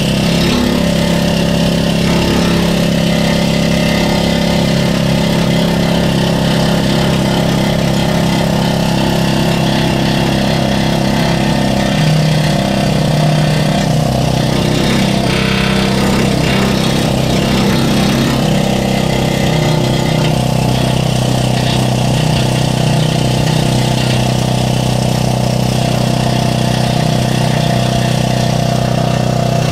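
Needle gun (needle scaler) hammering steadily against rusty steel angle iron, chipping off old paint and rust. It makes a loud, continuous, rapid buzzing clatter.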